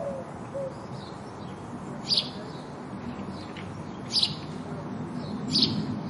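House sparrow chirping: three loud, short chirps about two seconds apart, each dropping in pitch, with fainter chirps between them, over a steady low background rumble.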